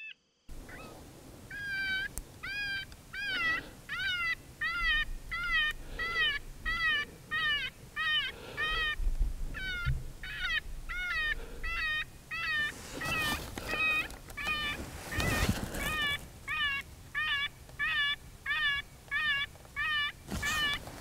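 FoxPro electronic predator caller playing a cottontail rabbit distress call: a rapid, even series of high squealing cries, nearly two a second, each one rising and then falling in pitch. Gusts of wind rush across the microphone about two-thirds of the way through and again near the end.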